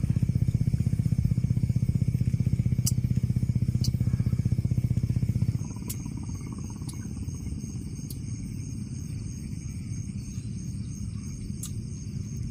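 A small engine running steadily, its fast regular firing pulses loud, cuts off suddenly about five and a half seconds in. After it, night insects chirr steadily, with a few sharp clicks.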